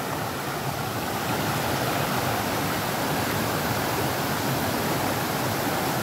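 Water rushing steadily over a small rocky cascade in a creek, an even, unbroken wash of sound.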